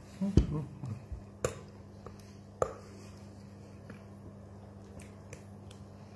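Knocks and clicks of hands and objects on a tabletop close to the phone's microphone: a cluster of thumps in the first second, two sharp clicks soon after, then a few faint ticks. A steady low electrical hum runs underneath.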